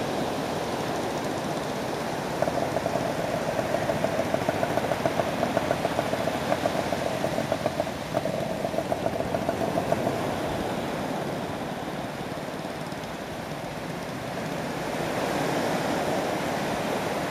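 Waves washing onto a beach, with a small engine running with a fast, even pulse from about two seconds in that fades out about ten seconds in.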